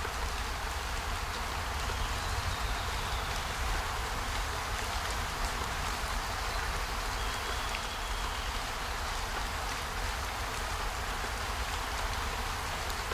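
Steady rushing water noise with a low rumble underneath, and a few faint, short, high tones now and then.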